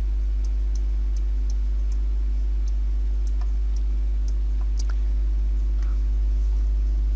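Steady low electrical hum, a mains hum in the recording, with faint light ticks about three times a second during the first five seconds.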